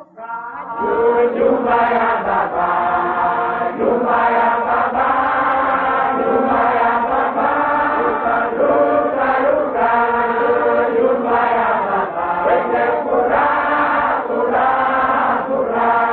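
Congregational singing of a praise chorus, in long held phrases that run on with only short breaths between them.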